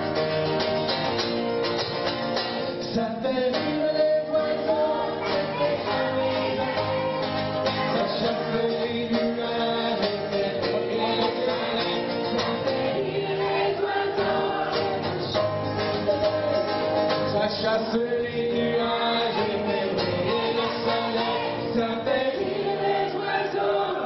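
Two men singing a duet live in harmony, one high voice and one low voice, with acoustic guitar accompaniment.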